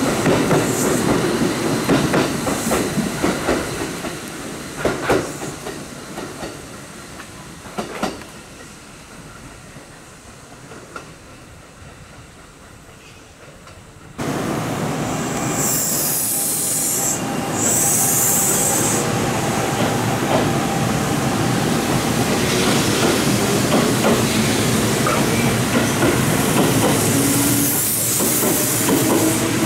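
Kintetsu electric trains at a platform. The first train's running noise fades away over about a dozen seconds, with a few rail clacks. Then, after a sudden change, a second train is heard with short bursts of air hiss and a motor whine that rises slowly in pitch as it pulls away.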